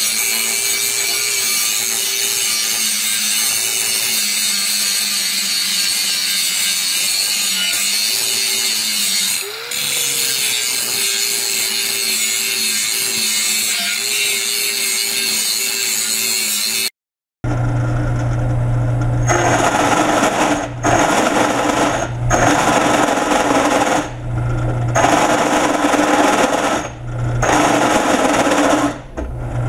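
Handheld angle grinder grinding a welded steel box, a steady hiss with a brief dip about nine seconds in. After a cut, a drill press runs with a strong low hum, rising and dropping away every second or two as it drills a steel plate clamped on a wood block.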